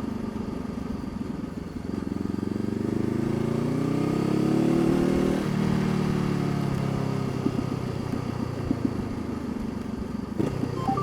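Honda CBR500R's parallel-twin engine under way: the revs climb steadily for a few seconds, then drop sharply as the throttle is closed, and the engine runs on at low revs with an uneven, popping beat.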